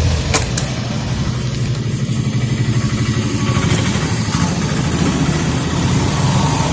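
Motor vehicle engine running steadily close by, a low, fast-pulsing rumble, with a couple of sharp clicks about half a second in.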